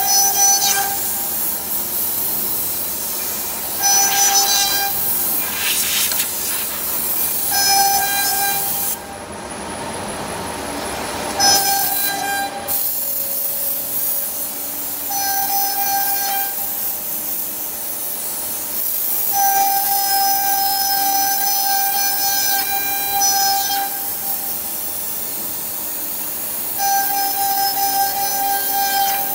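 CNC router spindle cutting a pattern into a wooden board: a steady rushing whir, with a high pitched whine that sets in for a second or so every few seconds and once holds for about four seconds.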